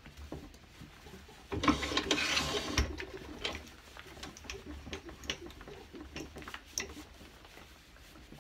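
Wood lathe tailstock slid along the lathe bed with a scraping rattle for about a second, then light clicks and knocks as it is locked and its handwheel cranked to clamp a wooden blank between centres.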